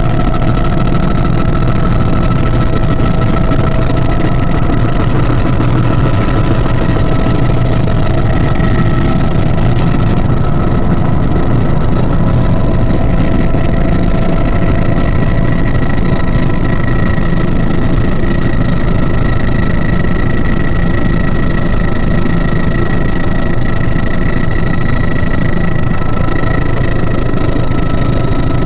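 Helicopter engine and rotor noise heard inside the cabin: a loud, steady drone with several constant high tones over it.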